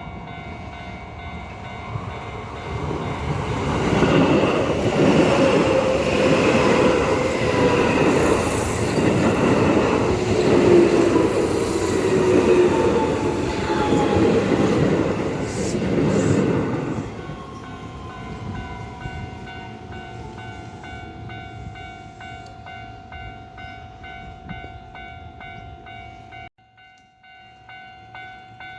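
A Keio Line electric train passing over a level crossing, loudest from about 4 to 17 seconds in. Its motors give a groaning whine that slides down in pitch, and a fainter falling whine trails off after it has passed. The crossing's warning bell rings steadily throughout, with a brief dropout near the end.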